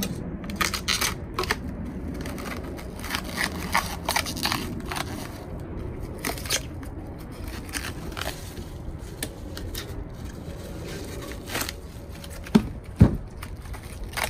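Plastic and paper packaging crinkling and tearing as hitch parts are unwrapped, in quick crackly bursts that thin out after the first half. Near the end, two heavy knocks about half a second apart as the metal parts are handled.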